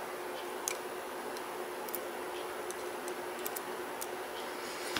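Tweezers clicking and ticking against a brass lock core as the sidebars are worked out: a few small, sparse metallic clicks over a steady faint hum.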